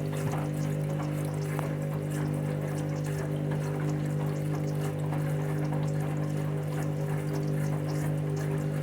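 Candy washing machine filling with water for its fabric conditioner rinse: a steady rush of inflowing water over a constant hum.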